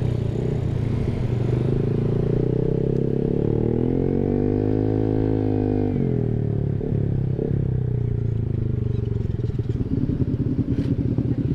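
Honda ADV 150 scooter's single-cylinder engine running through an R9 Alpha Series aftermarket exhaust while being ridden. The note climbs under throttle, drops abruptly about six seconds in as the throttle closes, then carries on at lower revs.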